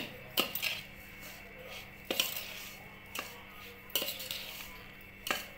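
A steel spoon stirring dry chilli-and-mustard pickle masala powder in a stainless steel bowl: soft scraping with about five sharp clinks of spoon on bowl.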